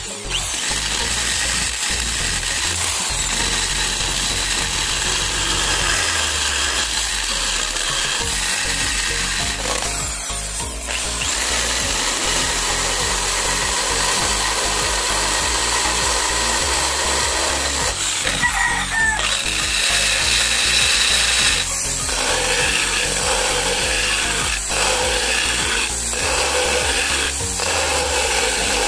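Electric drill fitted with a grinding bit, running almost without a break as it grinds away the inside rim of a Kawasaki HD3 headlight housing to widen it for a digital speedometer.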